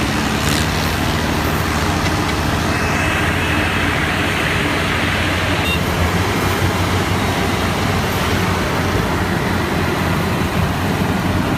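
An engine running steadily under load, with a dense mechanical noise over its low hum.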